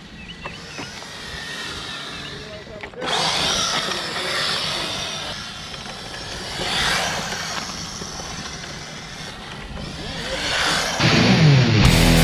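Electric 1/10-scale RC cars, a brushed Redcat Lightning EPX and a brushless Kyosho Fazer VE, driving on asphalt: a high motor whine with tyre hiss that starts abruptly about three seconds in and swells twice as the cars pass. Loud rock music comes in near the end.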